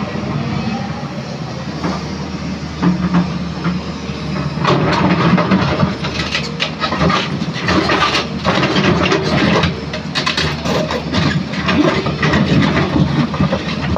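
Excavator engine running steadily, joined from about four seconds in by irregular clanking and scraping, the sound of broken old concrete being dug up and moved.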